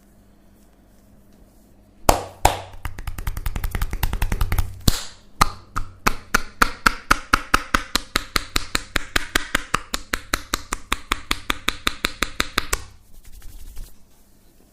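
Hands striking a person's body in rapid massage tapping, about five quick slaps a second for around ten seconds, with a brief break partway through, then stopping abruptly.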